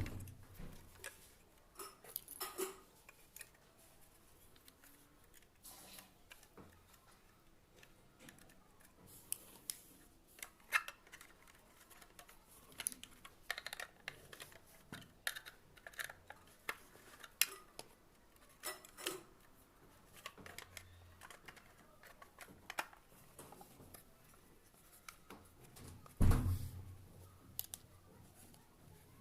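Irregular small clicks and light knocks of hard parts being handled, with one louder thump near the end.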